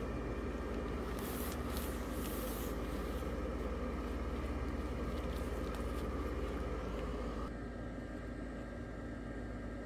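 Steady hum of the blower fan that keeps a Christmas yard inflatable inflated. It drops a little in level and sounds duller about seven and a half seconds in.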